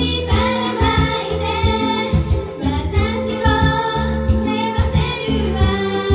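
Young women singing a Japanese idol pop song into microphones over loud pop music with a steady bass beat.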